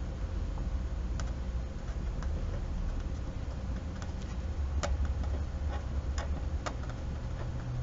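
Marker writing on paper: scattered light ticks and taps as the tip strikes and lifts between letters, over a steady low hum.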